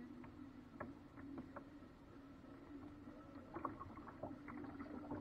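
Small paddle boat on a river: faint scattered light knocks and clicks against the hull, over a faint steady low hum.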